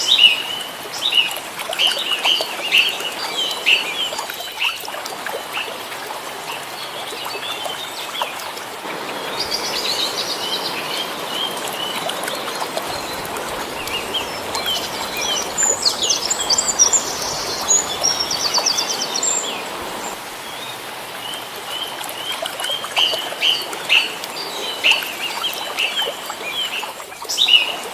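Small birds chirping over and over in short, high calls, with a steady hiss filling the middle stretch along with a few fast high trills.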